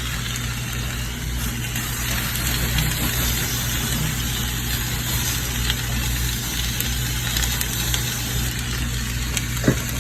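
Plant-based chicken and frozen stir-fry vegetables sizzling steadily in a frying pan, over a steady low hum.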